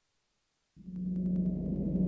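A low, steady drone starts suddenly about three quarters of a second in, after silence. It sits on one strong deep tone.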